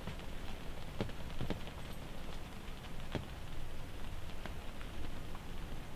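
Rain drops pattering on a hunting blind: scattered, irregular soft taps, a few louder than the rest, over a low steady rumble.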